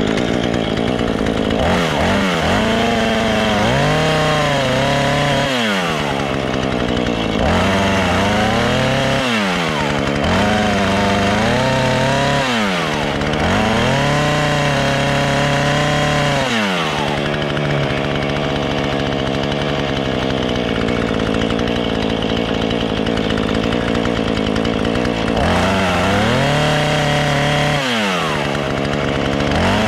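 Husqvarna two-stroke chainsaw revved up and let fall back again and again, its pitch rising and dropping every few seconds, as the bar tip cuts shallow letter grooves into a log. It runs steadier and lower for a stretch in the middle, then revs again near the end.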